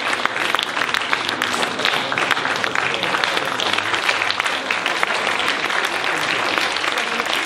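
Audience applauding: many hands clapping steadily and densely, with a few voices faintly under it.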